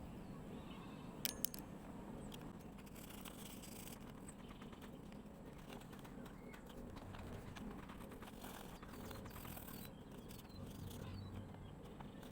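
Faint workbench handling sounds while a metal part is being marked out: two sharp clicks a little over a second in, then light ticks and scrapes over a low steady background hum.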